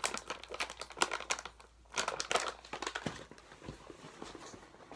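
Crinkly plastic packaging being handled, rustling and crackling in short clusters over the first couple of seconds, then fainter and sparser.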